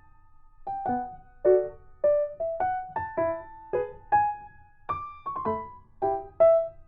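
Background piano music: a slow, gentle tune of single notes and soft chords, each struck and left to fade.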